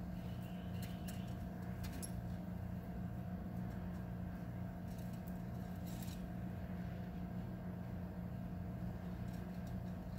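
Steady low electrical hum, with a few faint clicks and taps scattered through it.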